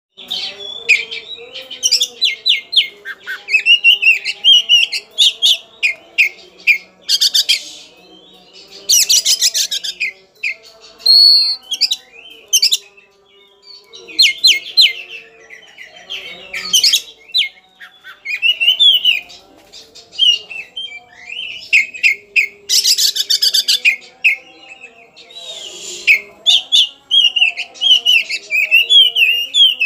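Caged oriental magpie-robin (kacer) singing loudly: a varied run of high whistled phrases and slurs, broken several times by harsh, rapid chattering bursts. It is the agitated, rival-challenging song of a fired-up kacer.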